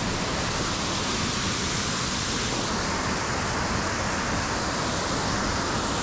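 Small waterfall's white water pouring steadily over rock, a continuous even rush.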